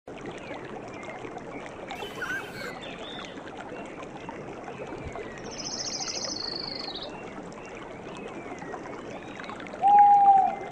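River water running steadily, with birds calling over it: scattered short chirps, a fast high trill about halfway, and near the end one loud, clear whistled note that is the loudest sound.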